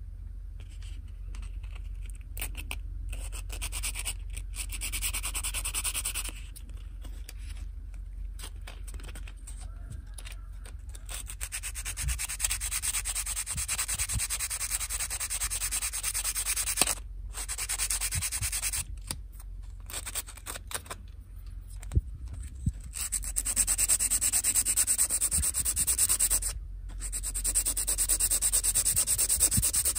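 Sanding a plastic scale-model part: steady rubbing strokes that stop for short pauses every few seconds, over a constant low hum.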